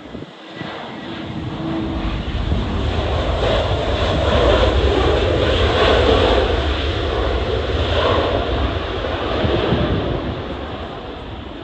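Jet airliner passing the airport perimeter, its engine noise swelling to a peak around halfway and then fading away, over gusty wind on the microphone.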